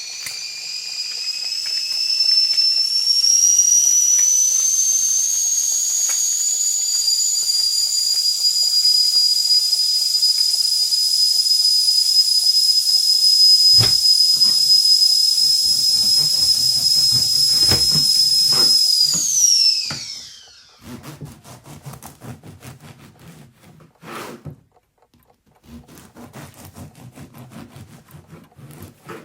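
Stovetop tea kettle whistling: the note rises in pitch as it comes to the boil, then holds a loud, steady, shrill tone with steam hiss. About twenty seconds in it drops in pitch and dies away, followed by light clinks and rattling.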